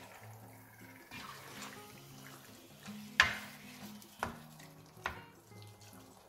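Black spatula stirring cubed chicken in a stainless steel pot, knocking and scraping against the pot a few times, the loudest knock about three seconds in, over a faint sizzle of the chicken frying.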